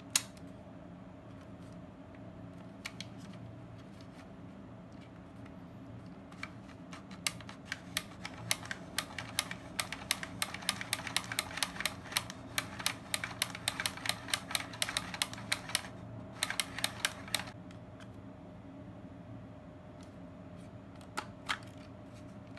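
Kodak KB-10 35mm film camera being rewound by hand: a run of rapid ratchet clicks lasting about ten seconds as the film winds back into its cassette. A single sharp click comes at the very start, and two more clicks come near the end.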